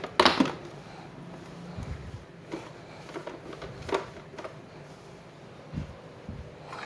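Light knocks and clatters of kitchen items being handled, a quick cluster just after the start and then a few scattered taps, over a faint steady hum.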